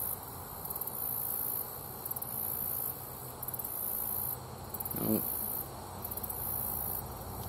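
Insects stridulating in the field. They make a high, buzzy trill that switches on and off in phrases of about a second, and each phrase starts with a stutter of quick ticks.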